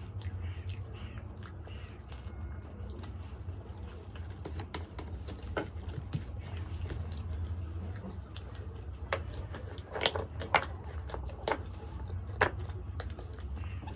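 Close-up eating sounds of methi parathas: chewing, tearing of the flatbread and wet mouth noises. A few sharp clicks come in the second half, over a steady low hum.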